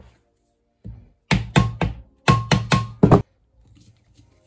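A quick run of about seven sharp, loud knocks, three and then four, several with a short metallic ring, over faint background music.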